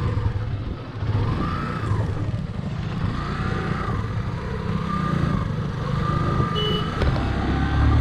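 Motorcycle engine running while riding, a steady low rumble whose pitch rises and falls several times with the throttle.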